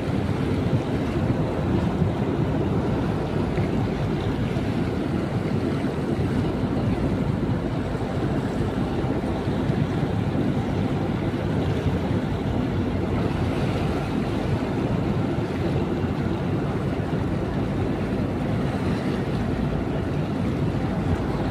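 Tugboat under way: a steady low rumble of its engine mixed with the churning of the propeller wash behind the stern, with wind on the microphone.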